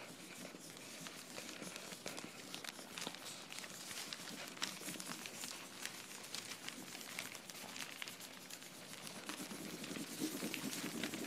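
Dense crackling and rustling made up of many small sharp clicks, growing louder and fuller near the end.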